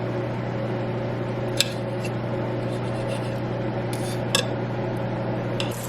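Cutlery clinking against a plate while cutting into a cooked elk steak: three sharp clinks spread through the moment, over a steady low hum.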